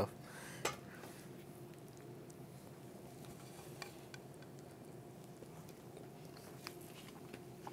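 Quiet room tone with a few faint clicks and taps as a taco is handled over a plate.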